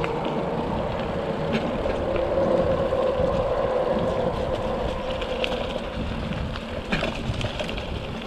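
Mountain bike rolling along a dirt singletrack: the knobby tyres give a steady hum that wavers in pitch with speed, with scattered clicks and rattles from the bike over bumps.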